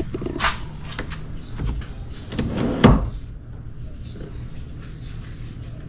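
A couple of sharp knocks, then one loud, heavy thump about three seconds in, like a door or panel being shut.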